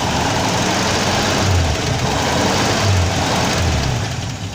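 1948 Buick straight-eight engine running, getting louder through the middle for a few seconds with an uneven low pulsing, then easing back near the end.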